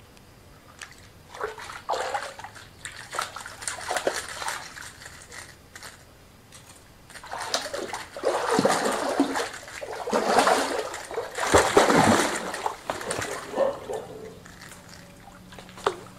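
Hooked fish thrashing and splashing at the water's surface against a bent fishing pole, in irregular bursts of splashing that are lighter at first and heaviest through the middle.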